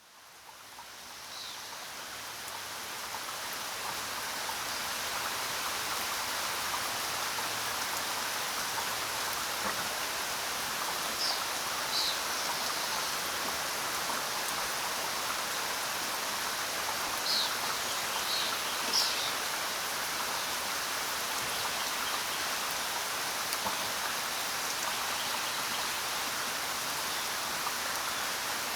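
Steady rain falling, fading in over the first few seconds and then holding even, with a few brief high chirps in the middle stretch.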